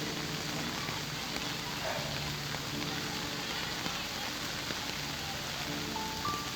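Heavy rain falling, a steady hiss, with faint music of held notes underneath; a higher melody line comes in near the end.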